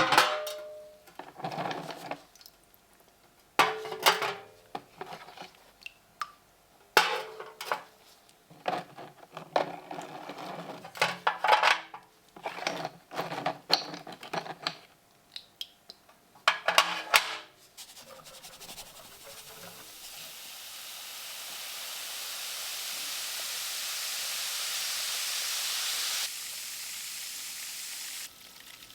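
Small metal parts clinking and scraping against each other and a hard surface in a series of short bursts. Then a hiss rises steadily over several seconds and cuts off suddenly.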